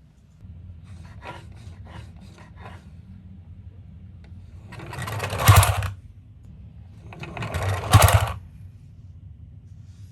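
Miniature toy ambulances rolling and clattering on a cardboard slope: a low steady rumble with a few light clicks in the first few seconds, then two rattles about two and a half seconds apart, each building up and ending in a sharp clatter.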